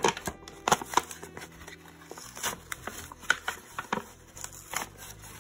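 Cardboard product box being torn and pried open by hand: irregular crackles, snaps and tearing of stiff paperboard as the sealed box resists opening.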